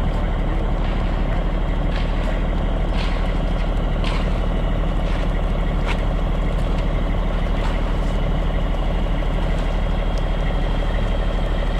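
Heavy truck engine running steadily, with a few short sharp knocks scattered over it.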